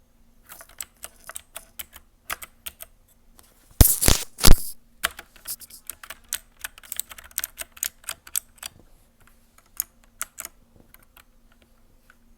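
Mechanical keyboard with clicky blue switches (Royal Kludge RK71): keys pressed in quick, irregular runs of sharp clicks that thin out near the end. Two loud thumps come about four seconds in.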